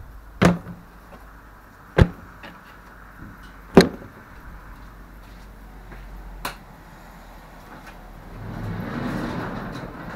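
Four sharp knocks a second or two apart, things being set down in a garage, then a metal up-and-over garage door swinging down with a rumble that builds over the last two seconds.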